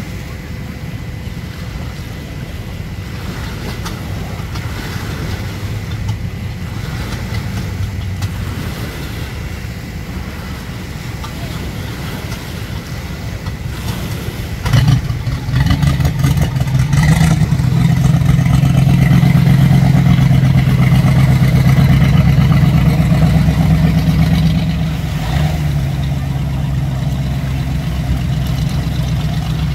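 A motorboat engine running low and steady, then opening up sharply about halfway through and running loud and steady as the boat pulls away, easing off a little near the end.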